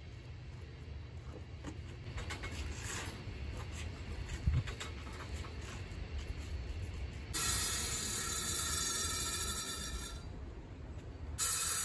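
Hiss of a sprayer misting the block wall. It starts about seven seconds in, cuts out for about a second and starts again near the end. Before it there is only low rumble, with one thump about halfway through.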